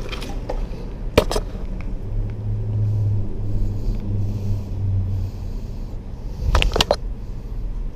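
Low rumble of traffic on a road bridge, with a steady low drone from about two to five seconds in as a vehicle crosses. A sharp knock about a second in and a few more near the end.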